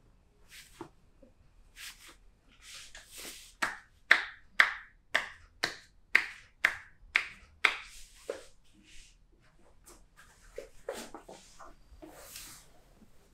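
Hands striking a person's back in percussive massage: a run of about nine sharp claps, about two a second, with softer pats and rustling before and after.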